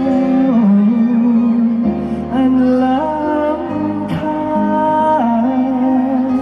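Male vocalist singing a Thai luk krung song live into a microphone over an amplified backing band, holding one long note in the middle.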